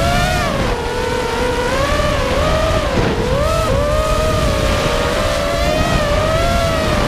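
FPV racing quadcopter's motors and propellers whining, the pitch wavering up and down with throttle and dipping sharply near the end. A rumble of wind buffets the drone's onboard camera underneath.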